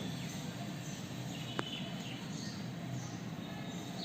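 Steady background hum and hiss, with faint short high chirps scattered through and a single sharp click about a second and a half in.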